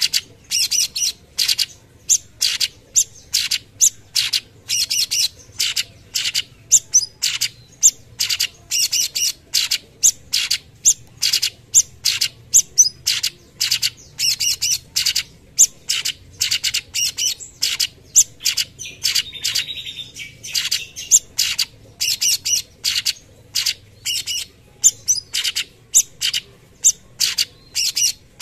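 Caged cucak cungkok leafbird singing its rapid-fire 'tembakan' song: an unbroken run of short, sharp, high notes, two or three a second. About two-thirds of the way through comes a brief softer, raspy stretch.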